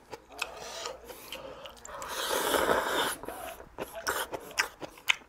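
Close-up eating sounds: a loud slurp of ramyeon noodles lasting about a second, two seconds in, then chewing, a sip of broth and small sharp clicks of the mouth and chopsticks.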